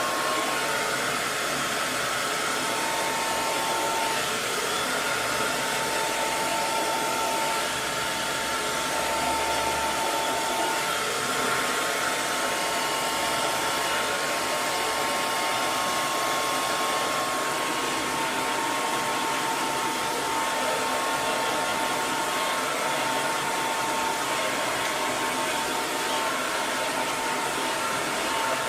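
Electric hair dryer running steadily: a continuous airy rush from the fan with a faint motor whine.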